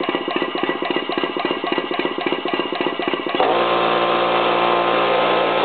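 Home-built twin-cylinder steam launch engine running slowly on compressed air at 20 PSI, its exhaust chuffing rapidly and evenly at about ten puffs a second. About three and a half seconds in, a louder steady hum takes over for the last two seconds.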